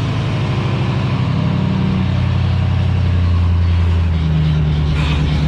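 Engine running steadily under a constant load, its note shifting about two seconds in and again about four seconds in.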